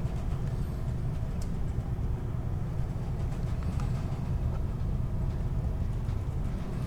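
Steady low rumble of the long-distance ferry 'Soleil' under way, the engine and hull noise heard aboard.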